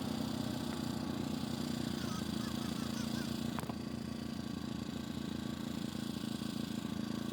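An engine running steadily at an even speed, with one sharp click about three and a half seconds in.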